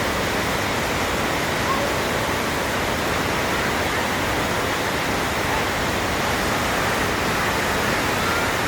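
Waterfall pouring steadily into its pool: an unbroken, even rush of falling water.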